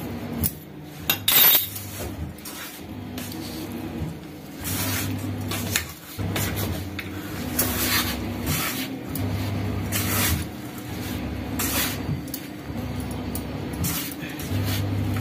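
Hands rubbing and crumbling a dry flour, semolina and onion mix in a stainless steel bowl, working hot oil in: irregular rustling and scraping against the metal, with a sharper knock about a second and a half in. A low hum comes and goes underneath.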